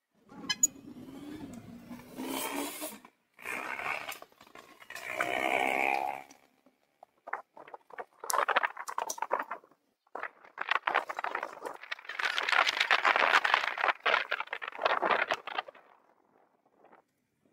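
Wind and road noise on the microphone of a camera riding on a moving bicycle, coming and going in uneven gusts that cut off abruptly between them, with rattling and scraping from the ride.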